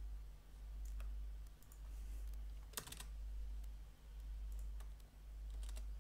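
Computer keyboard and mouse clicks as a value is typed into a field: a few scattered clicks with a quick cluster about three seconds in, over a low hum.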